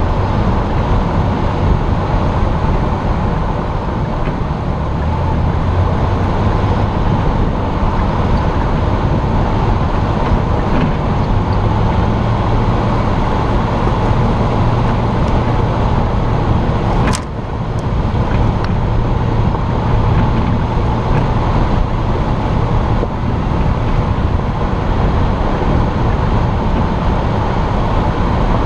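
Jeep driving uphill, its engine and tyres making a steady drone as heard from the hood, the low engine note shifting in pitch a few times. A single sharp knock comes a little past halfway, and the sound dips briefly after it.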